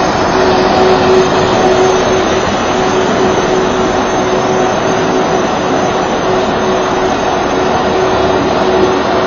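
Ice resurfacer running as it drives over the rink: a steady mechanical drone with a held hum in it.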